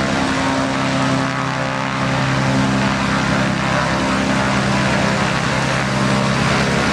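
ATV racing quad engines running steadily and loudly, a continuous droning with little change in pitch.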